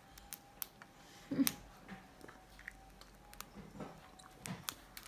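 Cockatiel pecking and crunching food in a small plastic feed cup: scattered sharp beak clicks against the plastic and a few soft crunches of chewing, with a faint steady hum behind.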